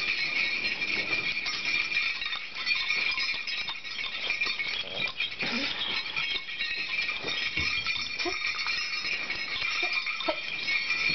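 Jingle bells on a golden retriever's Christmas collar jingling steadily as the dog moves about, with a few brief, short pitched sounds mixed in.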